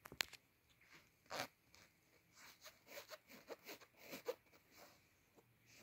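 Kitten licking and grooming its fur up close: a faint run of short, quick licking strokes, several a second, with a sharp click near the start.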